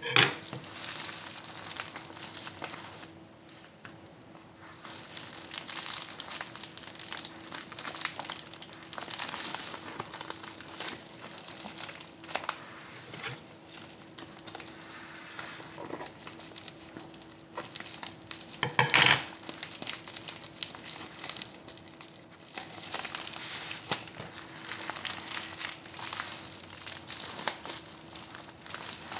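Plastic shipping mailer and its insulated foil liner crinkling and rustling as hands work inside the package, with a louder crackling rustle about 19 seconds in. A faint steady hum runs underneath.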